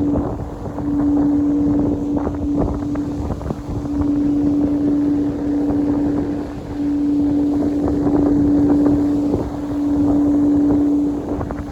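A steady tone held at one pitch, sounding four times with short gaps between, over a constant rush of wind on the microphone.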